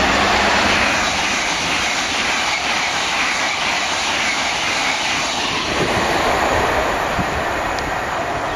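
A Great Western Railway Hitachi Intercity Express Train passing close at speed, with a loud, steady rush of wheels on rail and air.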